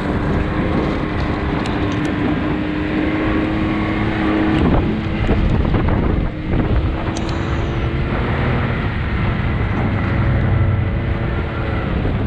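Can-Am Maverick X3 Turbo RR side-by-side's turbocharged three-cylinder engine running at a steady trail cruise, its note creeping up slightly over the first few seconds, with tyre rumble on gravel and dirt and wind buffeting the microphone.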